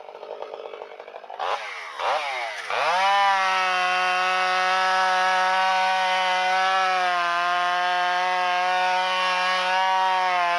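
Two-stroke chainsaw idling, then revved up three times in quick succession and held at full throttle. The pitch dips slightly about seven seconds in.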